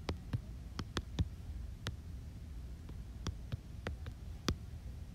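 Typing on an iPad's on-screen keyboard: about a dozen sharp, irregularly spaced taps, with a low steady hum beneath.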